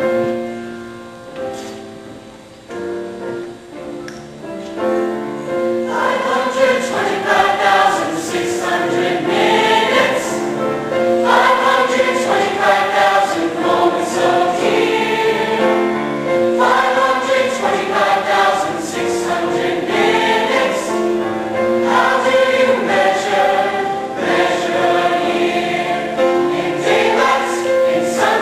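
A large mixed choir of teenage boys and girls singing, starting softly and growing fuller about six seconds in.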